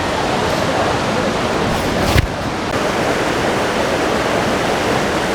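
Steady rush of fast-flowing mountain water, loud and unbroken, with a single short knock about two seconds in.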